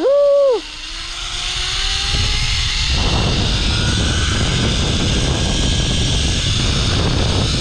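Zip-line trolley pulleys running along the steel cable, a whine rising in pitch over the first three seconds as the ride picks up speed. After that comes a steady rush of wind buffeting the microphone.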